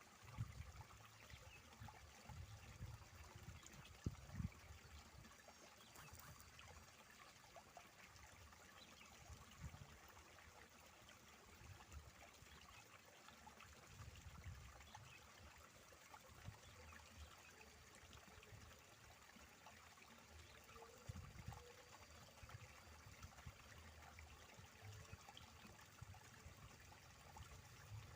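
Faint, steady trickle of water flowing in an irrigation channel, with a few scattered low thumps.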